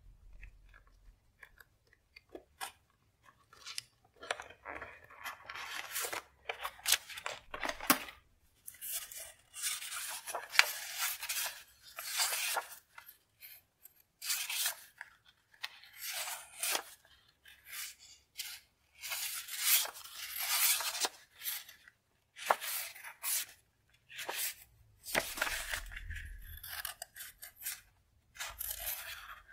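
Sheets of printed collage paper rustling and crinkling as they are pulled out, leafed through and shuffled by hand, in irregular bursts with short pauses between.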